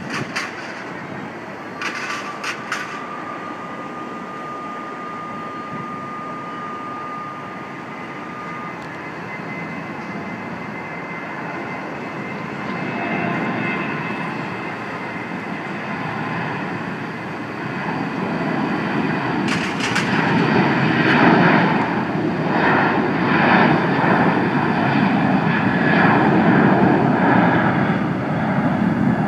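Distant jet airliner engine noise, a broad rumble that grows louder over the second half. A thin steady whine sounds for several seconds near the start, and there are a few sharp clicks.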